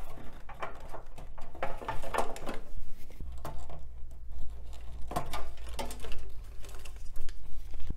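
IDE ribbon cables being pulled off their connectors inside a PC case: irregular clicks, scrapes and rustles of plastic connectors and flat ribbon cable. A low steady hum comes in about three seconds in.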